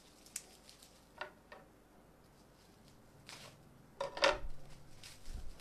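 Scattered crinkles and clicks of plastic wrapping being handled and cut off a bottle with scissors, the loudest rustling snip about four seconds in.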